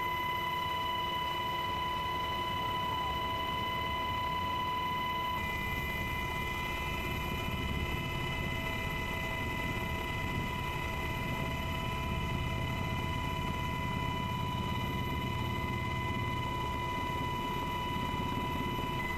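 Steady drone of an aircraft's engine heard from inside the cabin in flight: a constant high whine over a low rumble.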